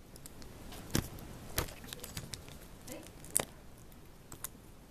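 Plastic LEGO bricks being handled and pressed together, with a few sharp clicks and clatters, the loudest about a second in and again about three and a half seconds in, and lighter clicks from loose pieces between them.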